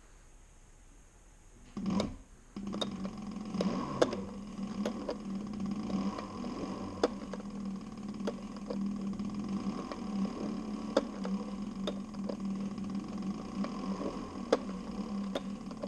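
Cobra leather sewing machine stitching through harness leather. It starts after a thump about two seconds in, then runs with a steady hum and sharp clicks every second or so.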